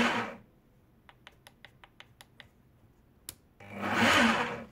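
Parkside Performance PPBH 1600 A1 SDS-Max hammer drill's motor whirring briefly as the trigger is blipped, dying away at the start and swelling up and down again for about a second near the end. In between, a quick run of about eight light clicks and then one more click.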